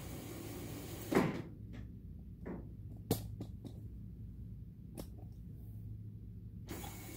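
A thump about a second in, then a few sharp clicks, from footsteps and handling while walking up to a wall-mounted curtain control panel, over a low steady hum.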